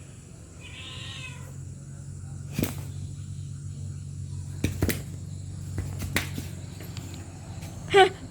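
A domestic cat meows once, briefly, about a second in. Several sharp knocks or taps follow over the next few seconds over a steady low hum.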